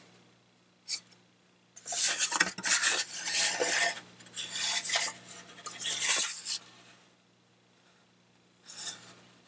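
Hard plastic body parts of a Tamiya Toyota Hilux RC truck handled and turned in the hands, rubbing and clacking against each other and the fingers: a single click about a second in, then about five seconds of scraping and rattling, and a short scrape near the end.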